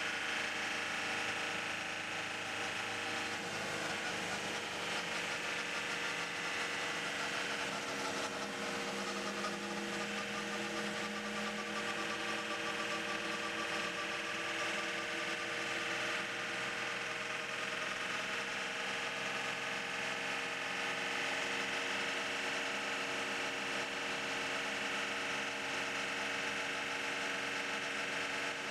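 Onboard sound of an Audi R18 e-tron quattro's V6 turbodiesel running under load at speed, its note mostly steady with gentle dips and rises in pitch, over a constant hiss.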